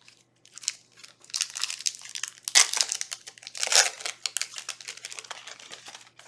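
Foil booster-pack wrapper crinkling and tearing as a Yu-Gi-Oh card pack is opened, a run of irregular crackles with the loudest rips about two and a half and four seconds in.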